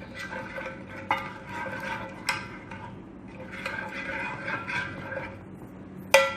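Spoon stirring a thick yogurt and spice marinade in a bowl, scraping round and round, the bowl ringing faintly, with sharp clinks of the spoon against the bowl about one and two seconds in and a louder one near the end.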